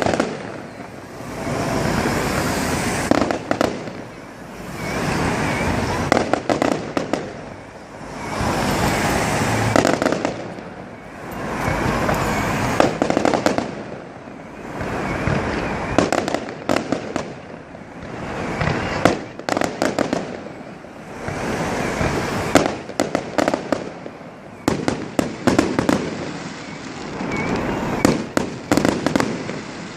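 Fireworks going off in steady succession: about every two seconds a swelling rush, followed by a rapid crackle of many small pops.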